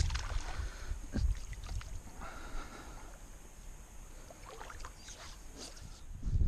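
Kayak handling sounds: scattered small knocks and clicks, with water sounds over a steady low rumble. The loudest knocks come at the start and about a second in.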